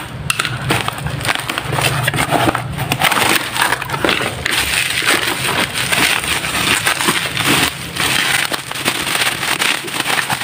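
Cardboard parcel being pulled open, then plastic bubble wrap crinkling and rustling as it is handled by hand: a dense run of crackles and small clicks.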